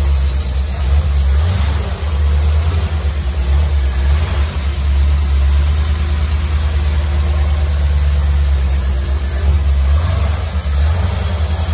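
Ford 351 Windsor V8 of a 1968 F-100, with a two-barrel carburettor, running steadily on freshly fitted spark plugs and plug wires.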